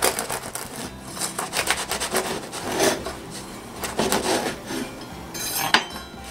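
Serrated bread knife sawing back and forth through the crisp, crackly crust of a pain de campagne on a wooden board, in repeated rasping strokes, with a sharp click near the end as the loaf is cut through.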